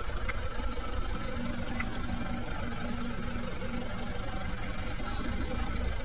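An engine idling steadily, a low even rumble.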